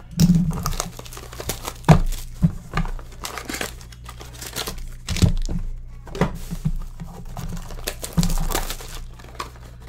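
A trading card box being opened by hand: packaging crinkling and tearing, with irregular sharp taps and clicks of cardboard being handled.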